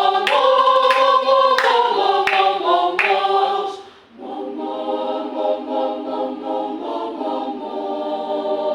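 A choir singing unaccompanied held chords on the syllable "mo" as a vocal warm-up exercise. The chord breaks off about four seconds in, and a new, somewhat softer held chord begins.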